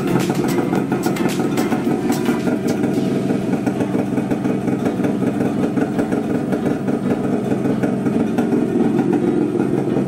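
Yamaha RD250LC race bike's liquid-cooled two-stroke parallel-twin engine idling steadily on the stand.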